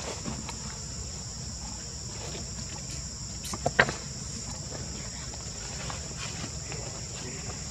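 Steady high-pitched chorus of insects, with two sharp clicks close together about four seconds in.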